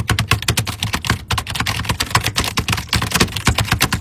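Fast, loud typing on a computer keyboard: an unbroken run of key clacks, about eight keystrokes a second.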